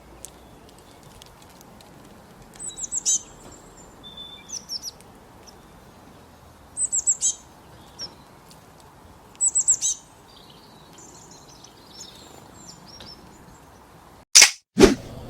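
A songbird singing short phrases of quick, high, falling notes, repeated every two to three seconds over faint background hiss. Near the end, a sudden loud burst cuts in.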